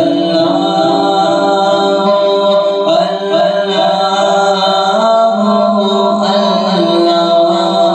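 Devotional vocal chant: layered voices holding a slow, sustained melody, with the pitch shifting about three and five seconds in.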